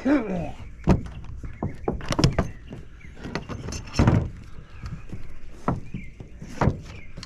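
Hand work on a mobile home's metal gutter and trim: irregular knocks and clicks with scraping between them, the sharpest strikes about one, two, four and near seven seconds in.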